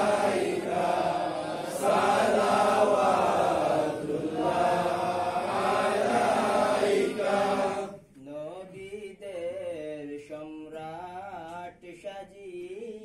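Men's voices singing an Islamic devotional song together. About eight seconds in, the group drops away suddenly and a single man's voice carries on singing alone, much quieter, with a wavering melody.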